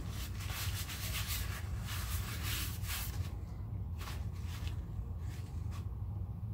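Rubbing and scrubbing as flux residue is wiped off a freshly soldered joint on a thin laptop display-cable wire: quick, dense strokes for about three seconds, then a few short separate rubs.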